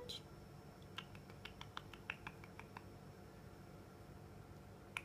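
Guinea pig giving a short squeak right at the start, then a run of quick, light clicks about a second in that lasts under two seconds.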